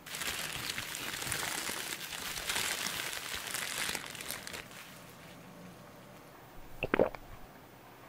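Bubble wrap crinkling and rustling as it is pulled off a small bottle, for about four and a half seconds. About seven seconds in comes one short sharp click.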